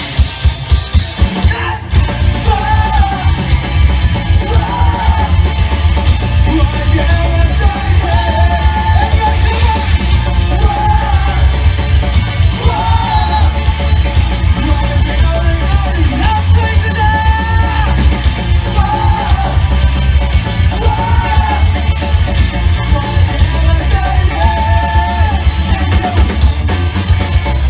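Live rock band playing loudly, with drums and bass pounding under a shouted, sung lead vocal.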